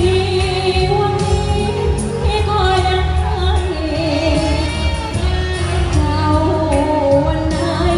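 A young singer singing a Thai luk thung song live into a handheld microphone, over amplified band backing with a heavy bass beat.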